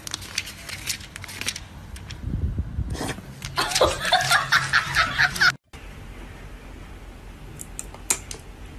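A person laughing in quick repeated bursts for about two seconds, cut off sharply near the middle; afterwards only a quiet room background with a few faint clicks.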